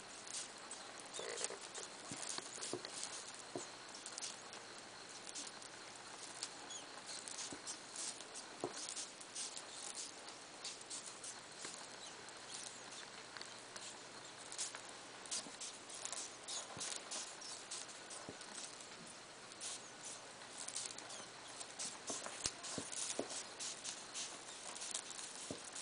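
Faint, irregular light clicking and rustling from a pair of African pygmy hedgehogs mating on bedding, over a steady hiss.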